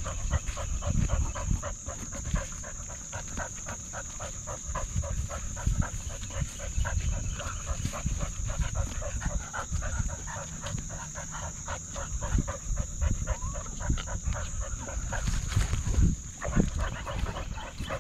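Dog running along a trail, heard from a camera mounted on its harness: rapid rhythmic panting and footfalls at about four a second, with a steady high whine underneath.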